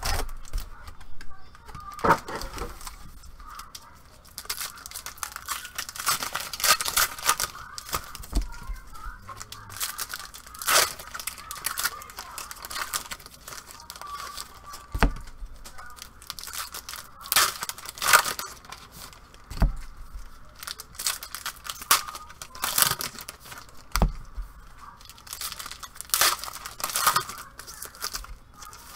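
Foil wrappers of 2015 Contenders baseball card packs being torn open and crinkled: an irregular run of sharp rips and crackles, with the cards from the packs being handled.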